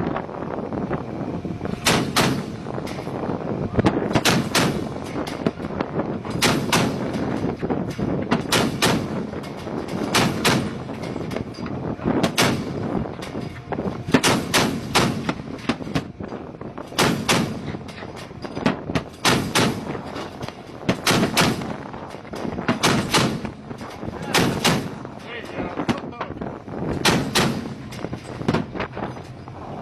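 Gunshots fired repeatedly, single or in quick pairs about every one to two seconds, over a steady rushing background of wind and boat noise, as in an exchange of fire at sea.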